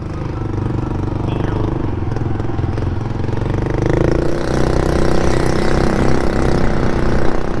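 Yamaha Majesty C scooter's engine running as it pulls away from a stop and gathers speed, with wind rushing over the microphone.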